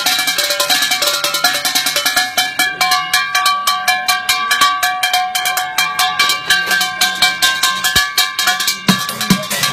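Junk percussion played fast on pots, pans, metal tins and plastic buckets: rapid even strokes with ringing metallic tones, and deeper bucket thumps coming in near the end.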